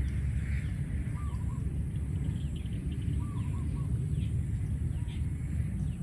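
A steady low rumble with birds calling over it: a short two-note call about a second in and again around three seconds in, and faint higher chirps between.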